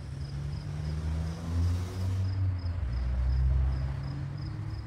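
Low engine sound of a passing motor vehicle, swelling about a second and a half in and easing off near the end. A cricket chirps steadily throughout, about three times a second.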